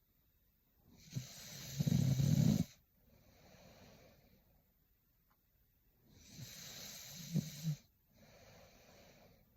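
A young woman snoring in her sleep: two loud snoring breaths about five seconds apart, each with a low rattling rumble, and each followed by a softer, quieter breath.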